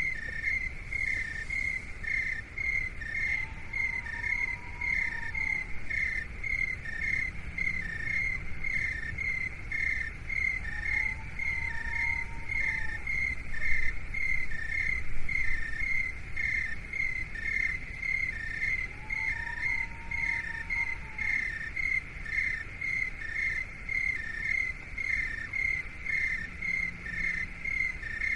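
Insect-like chirping in an even, unbroken rhythm of about two to three short chirps a second, alternating between two close pitches, over a low rumble. A faint, soft rising-and-falling tone comes back about every eight seconds.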